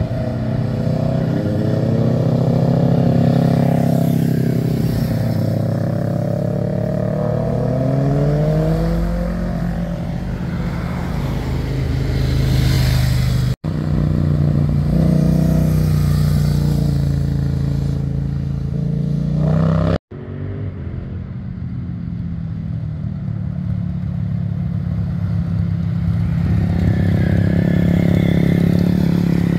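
Motorcycle engines passing through bends, revving up and down with gear changes, in three clips cut together; the last is a white Yamaha sport bike going by. Cars pass in the mix as well.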